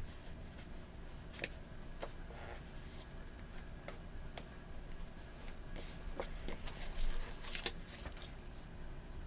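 Paper and stickers being handled on planner pages: scattered soft clicks, taps and rustles at irregular moments over a steady low room hum.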